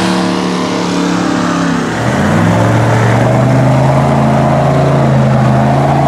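Off-road buggy's engine easing off, then revving up about two seconds in and held at steady high revs as the buggy drives into a mud pit on its big mud tyres.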